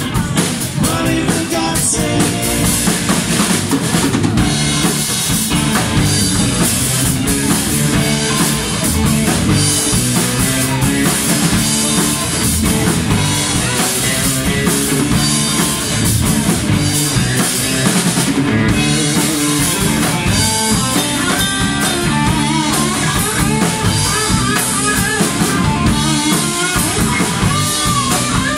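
Live rock band playing: drum kit with steady bass drum and snare strokes under electric bass and electric guitar.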